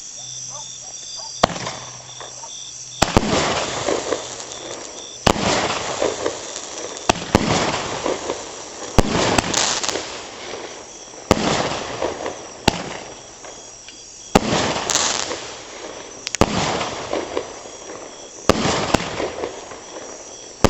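Fireworks going off in a steady series: a sharp bang about every two seconds, each followed by a second or so of crackling.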